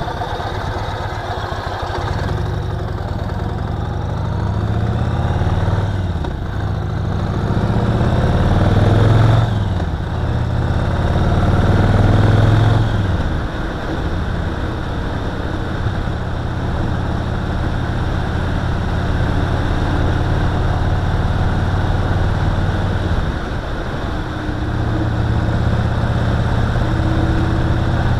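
Yamaha Roadliner's V-twin engine accelerating through three upshifts: its note climbs in each gear and drops at each shift. It then settles to a steady cruise, easing briefly about two-thirds of the way in.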